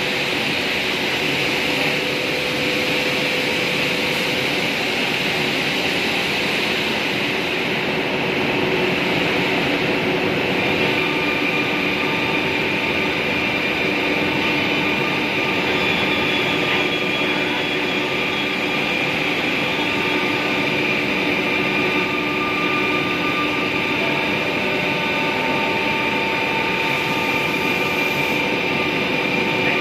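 Woodworking machinery running steadily, from a KDT KN 6516 CNC panel drilling and routing machine and the shop around it. A constant rush of noise carries several steady high whining tones, which grow clearer about ten seconds in.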